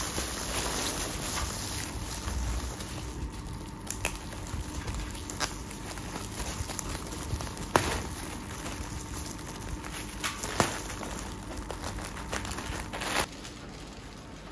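Rustling handling noise, such as snack packets and wrappers being handled, with about five sharp clicks or knocks scattered through it; the loudest knock comes a little over halfway through.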